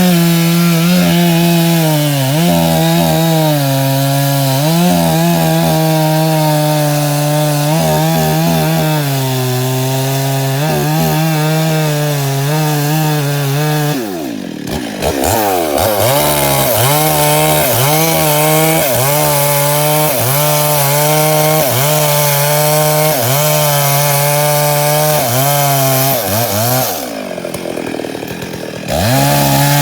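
Chainsaw running at high revs as it cuts wood, its engine pitch sagging and recovering again and again under load. Twice it drops briefly toward idle, about halfway through and near the end, then revs back up.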